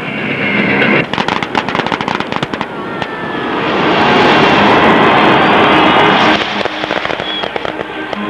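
Aerial fireworks going off: a quick run of sharp bangs and crackles in the first few seconds, then a long, dense crackling hiss from about three seconds in to past six, trailing off into scattered cracks.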